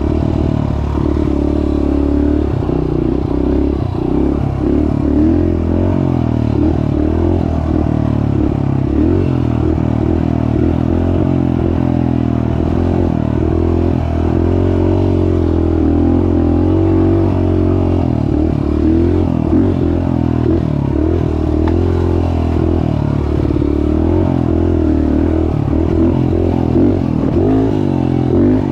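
Small off-road vehicle engine running steadily while riding a trail, its pitch rising and falling with the throttle.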